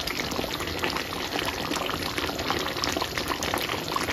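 Thick chicken curry gravy boiling steadily in an open pot, a dense patter of small bubbles popping at its surface.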